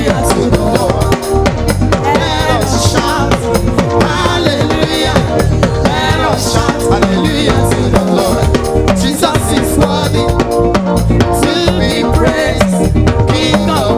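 Gospel worship band music, with a drum kit keeping a steady beat under a moving bass line.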